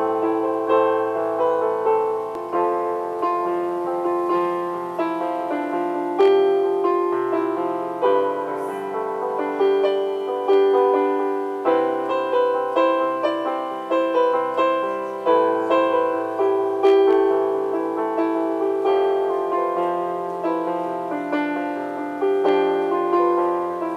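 Electronic keyboard played with a piano voice: a two-handed melody over chords, notes struck one after another and left to ring and fade.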